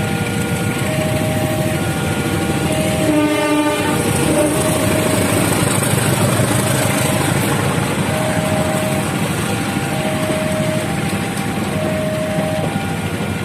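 Railway level-crossing alarm sounding an electronic two-tone siren, switching between a lower and a higher note about once a second, while a train passes with rumbling wheel and rail noise. About three seconds in, the train's horn sounds once for about a second and a half.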